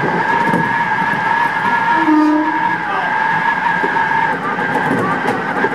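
Odakyu 1000-series electric train running, heard from inside the front cab: a steady rumble of the wheels with a high, steady squeal typical of wheel flanges rubbing on a curve, turning wavy near the end. A brief lower tone comes about two seconds in.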